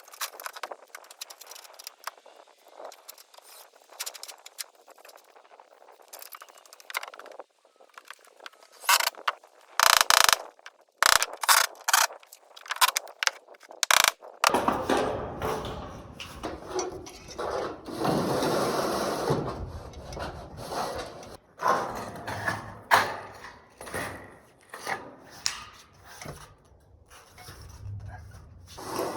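Work noise from installing metal roofing panels: scattered sharp clicks and ratcheting mechanical noise, then a run of loud knocks about a third of the way in, and a busier, fuller stretch of noise in the second half.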